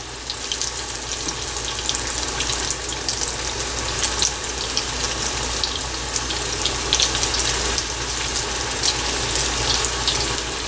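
Corn-flour and rice-flour battered eggplant pieces deep-frying in hot oil: a steady sizzle with many small crackles and pops.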